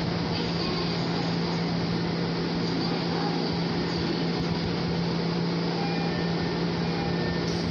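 Steady hum of a Shinano Railway SR1 series electric train standing at the platform with its doors open: its onboard equipment runs with a constant low tone under an even hiss.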